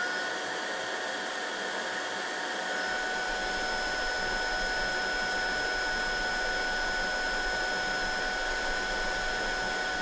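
Tineco A10 Dash cordless vacuum's motor running steadily on level 1, its lower power setting: an even high whine over a rush of air.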